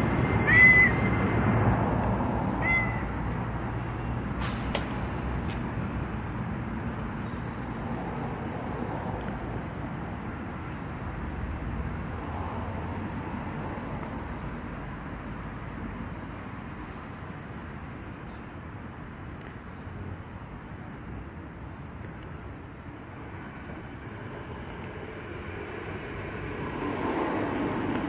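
A cat meows twice, short and high, in the first few seconds, over steady background traffic noise.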